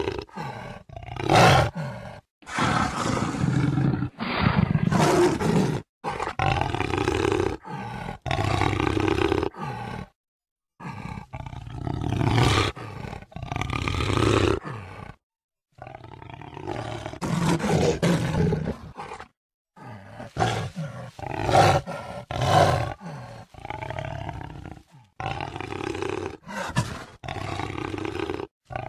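Jaguar roaring over and over, each call a second or two long. Several calls cut off abruptly into brief dead silence, as if separate recordings were spliced together.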